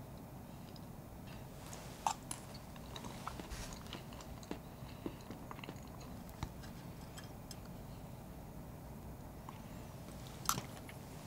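Quiet eating sounds: chewing a bite of blueberry mousse cake with a crunchy Oreo crumb base, with scattered small clicks of a metal spoon on a slate plate. Near the end comes a sharp clink as the spoon scrapes the slate.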